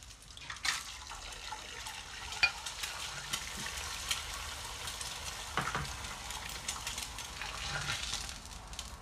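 Food sizzling and crackling in a frying pan, with scattered sharp clicks and clinks, one louder about two and a half seconds in.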